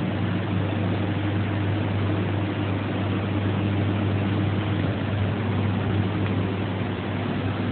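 Steady low machine hum over a constant hiss, with no knocks or impacts.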